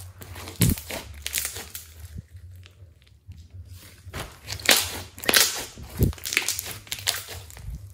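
Hands kneading and squeezing a lump of slime: irregular sticky crackling and sharp pops as the slime is pressed and pulled, with the loudest cluster of pops in the second half.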